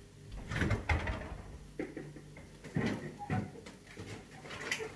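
Scattered knocks and clatters of things being moved about in an open refrigerator, about half a dozen short sounds spread over a few seconds.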